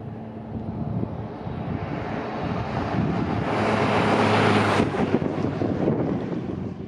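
A heavy truck passing close by on an asphalt road: its engine hum and tyre noise grow louder, peak about four to five seconds in, then fade away.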